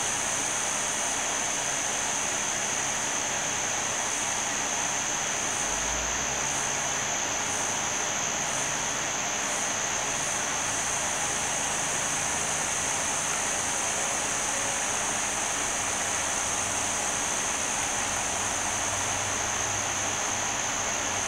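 A steady, even hiss with a constant high-pitched whine over it, unchanging throughout.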